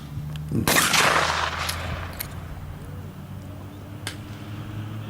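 A single shotgun shot about half a second in, its report trailing off over about a second, over a low steady hum.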